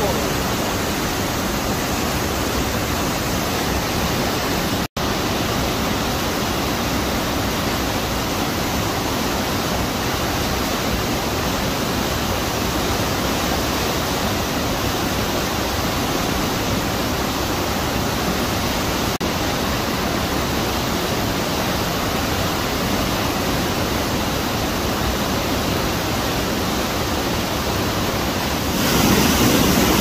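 Banias stream in spate after winter rains, its muddy water rushing in a steady, even torrent down a rocky cascade. The sound cuts out for an instant about five seconds in, and near the end it grows louder and deeper as the view moves close to whitewater breaking around a boulder.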